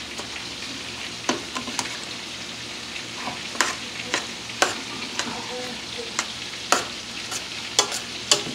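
Mac and cheese, rotini pasta with cubes of Velveeta, being stirred in a stainless steel pot, with irregular sharp clinks against the pot. Underneath is the steady sizzle of breaded chicken cutlets frying in a pan.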